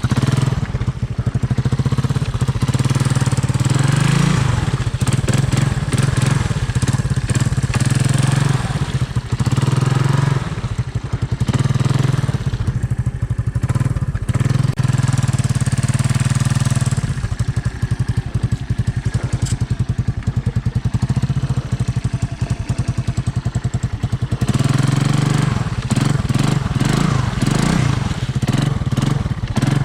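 Honda ATC 200M three-wheeler's single-cylinder four-stroke engine running steadily, with small rises and falls in revs.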